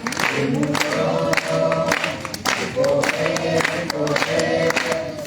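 A group of voices singing a chorus song together, with hands clapping along in time.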